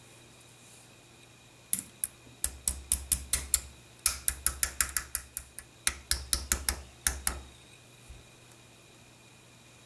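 A nylon-faced gunsmith's hammer tapping lightly and quickly on a steel shotgun receiver, about five taps a second in two runs with a short pause between. The taps drive the rear trigger pin into the H&R Topper M48's receiver, pushing out the slave pin that held the parts aligned.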